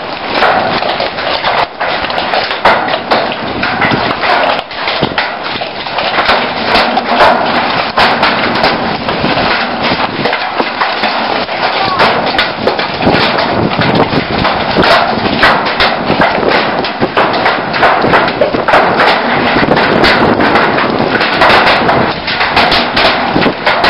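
Large hailstones pelting a roof and the ground in a heavy hailstorm: a dense, steady clatter of hard ice impacts, with many sharp individual cracks standing out.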